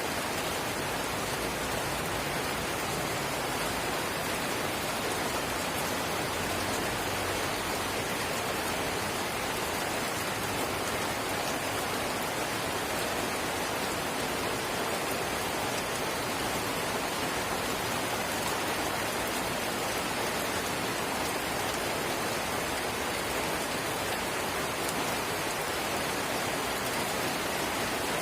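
Steady drizzle falling, an even patter of fine raindrops on surfaces.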